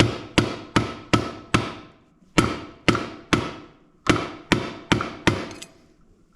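Hammer striking a homemade wedge tool, driving it in to knock the chuck off a drill press spindle: about a dozen sharp blows, roughly two or three a second, with each blow ringing briefly and a short pause near two seconds in.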